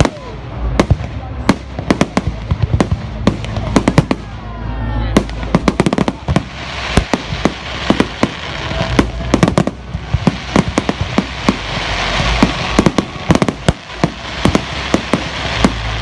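Fireworks going off: a rapid, irregular series of sharp bangs and pops, with a dense crackling hiss building from about six seconds in.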